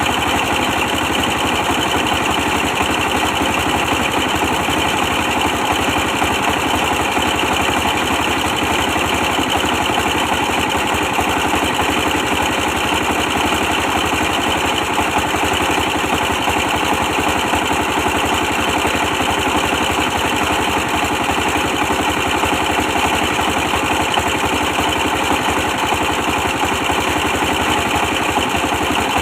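A 24 hp diesel engine driving a brick press, running steadily with a fast, even beat.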